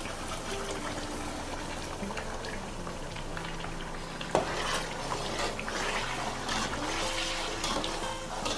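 Blended pepper mix being poured into a pot of tomato paste frying in palm oil, the wet mixture splashing in and the pot bubbling and spluttering, with one sharp knock about halfway through.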